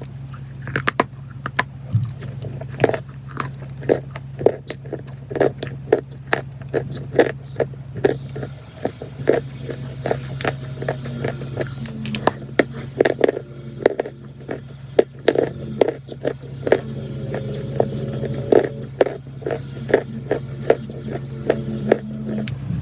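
Crunchy chalk and clay crunching and crumbling: many crisp crunches a few per second, over a steady low hum.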